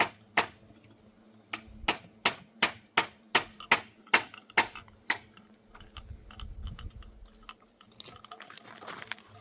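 Hammer blows on wood, quick even strikes about three a second, with a short pause about a second in, stopping about five seconds in; a low rumble follows.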